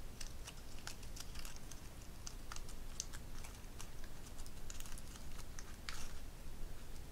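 Fringed patterned paper strips crinkling as they are scrunched and crumpled between the fingers: irregular soft crackles and ticks, a little stronger about three seconds in and near six seconds.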